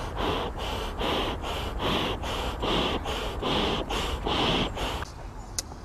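A person blowing by mouth into the valve of a Sparrow Grand 50 self-inflating camping mat: a quick, regular series of breath puffs and in-breaths, about two a second, stopping about five seconds in.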